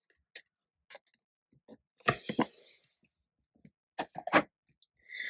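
Scattered light clicks and taps of craft supplies being handled on a tabletop, with a brief rustle about two seconds in and a quick cluster of taps around four seconds in.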